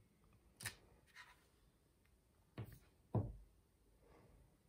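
A few short, soft clicks and knocks as a clear acrylic stamp block is lifted from the card stock and set down on the craft mat, the loudest knock a little past three seconds in.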